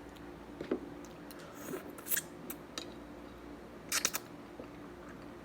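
Scattered short, sharp clicks and snips of tableware being handled over a bowl of noodle soup, the loudest a close double click about four seconds in.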